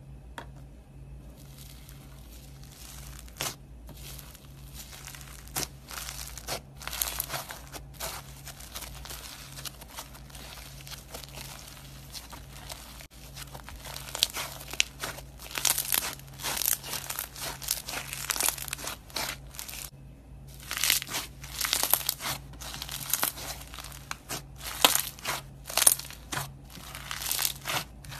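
Slime being squeezed and worked by hand, giving dense, irregular crackles and pops. It starts about a second and a half in and pauses briefly about two-thirds of the way through, over a faint steady low hum.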